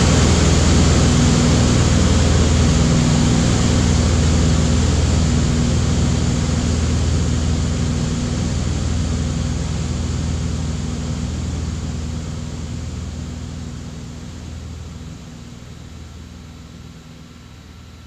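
Cockpit drone of a Beechcraft Debonair's six-cylinder piston engine and propeller in level cruise: a steady hum with several fixed low pitches, fading away gradually through the second half.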